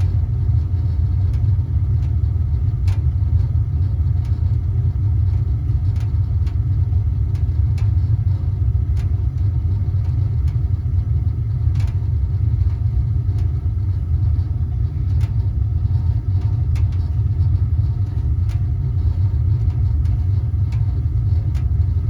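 Gas water heater burner lit and firing, a steady low rumble. The heater has relit after its gas control was reset. A few faint clicks are scattered through it.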